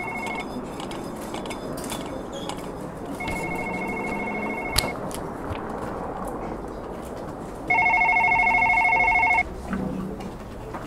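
A telephone's electronic trilling ring sounds in three bursts, the last one loudest, over a steady background hum. A single sharp click comes about five seconds in.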